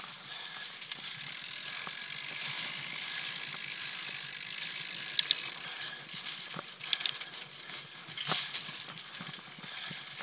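Mountain bike's rear freehub ratcheting steadily as the bike coasts, over tyre and trail noise, with a few sharp knocks from the bike about 5, 7 and 8 seconds in.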